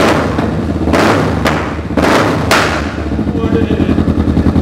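Kawasaki Vulcan's parallel-twin engine revved in sharp throttle blips through a custom LeoVince exhaust. About five quick blips come in the first half, each with a sharp crack from the exhaust as it spits flames. The engine then runs on with a lower pulsing note.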